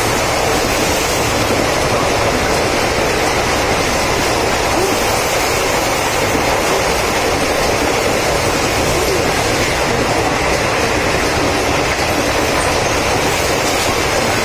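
Mumbai suburban local train running at speed between stations: a loud, steady rush of wheel, track and air noise with no breaks.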